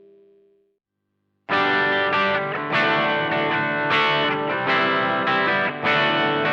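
Les Paul electric guitar through a prototype FET overdrive pedal with asymmetric diode clipping, into a Blackstar HT5 valve amp. A held chord dies away, there is a short silence, and about a second and a half in loud overdriven chords and riffs begin with a steady rhythmic attack.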